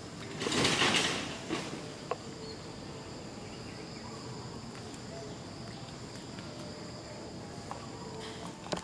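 Steady, high-pitched insect drone in the background. About half a second in, a brief rustling noise lasting under a second is the loudest sound, followed by a couple of faint clicks.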